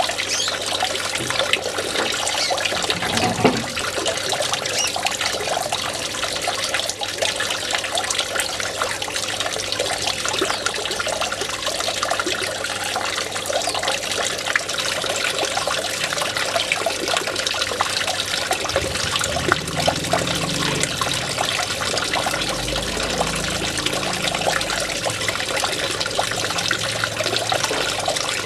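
Water trickling and splashing steadily over the lip of a stone fountain basin into the water below.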